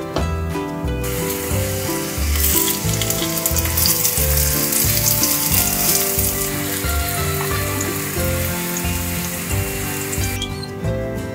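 Apple slices sizzling as they fry in a hot pan. The sizzle starts about a second in and cuts off shortly before the end, over background music with a steady beat.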